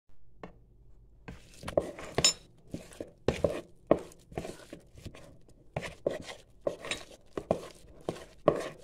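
Hand mixing blueberries into thick pancake batter: a utensil stirring and scraping against the mixing bowl in repeated short strokes, about two to three a second, starting about a second in.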